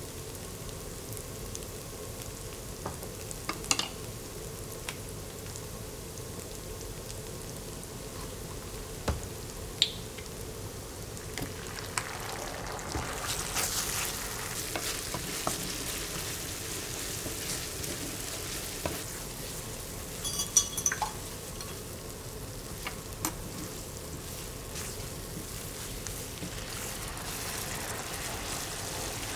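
Food sizzling as it fries in a pan, with occasional sharp taps and clicks. The sizzle grows louder for a few seconds about midway, and a short metallic clink rings out about two-thirds of the way through.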